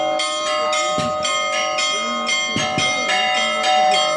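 Orthodox monastery bells ringing together: several smaller bells struck rapidly, about five strokes a second, over their long-ringing tones, with a heavier low bell stroke about a second in and twice more in quick succession in the middle.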